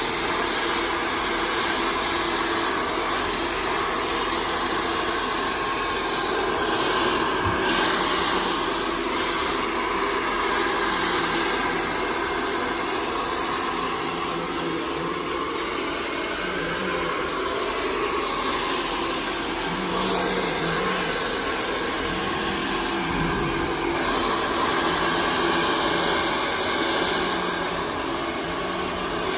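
Handheld hair dryer running steadily, blowing air, its level swelling and dipping slightly as it is moved over the hair.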